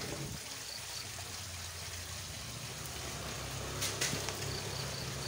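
Steady background noise with a faint low hum that comes in after about two and a half seconds and a single brief click just before four seconds in.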